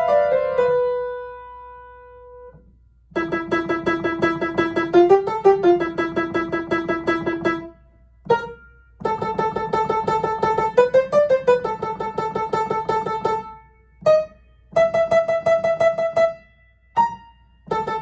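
Upright piano being played. A held note dies away, then come runs of rapid, repeated short notes, broken by brief pauses and single separate notes.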